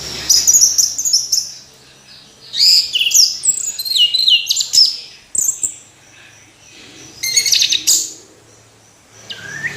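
Orange-headed thrush singing: phrases of clear whistles, quick sliding notes and rapid trills, separated by pauses of a second or two, with a new phrase beginning near the end.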